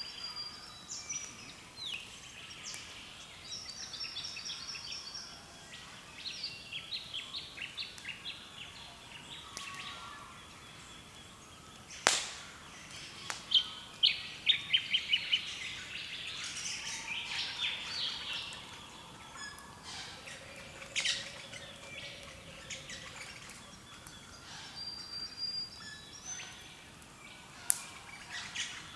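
Several birds calling and singing together in an early-morning dawn chorus: chirps, whistles and quick trills overlapping, with a fast run of repeated notes a little after the middle. A sharp click about twelve seconds in is the loudest sound.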